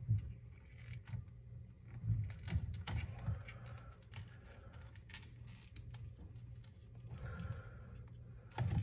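Scattered small clicks and light knocks of hands working a new electrical plug and connector into place, over a low steady hum.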